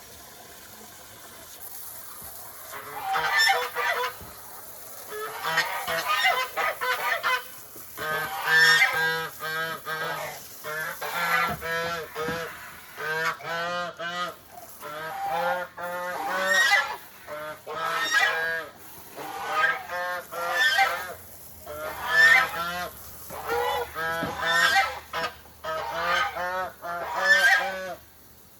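Domestic goose honking over and over, in loud runs of calls that start about three seconds in and keep coming every second or two.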